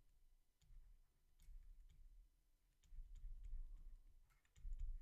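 Near silence broken by faint, irregular clicks of a stylus tapping on a drawing tablet as text is written, over a soft low rumble.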